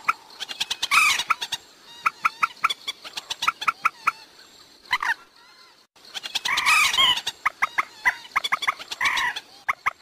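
Common moorhen calling: a rapid run of sharp clucks broken several times by louder cackling calls.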